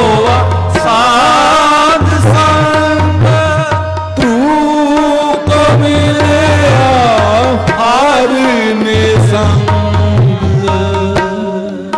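Sikh kirtan music: harmonium with tabla keeping a steady beat, under a sliding, ornamented sung melody line. The music thins out near the end.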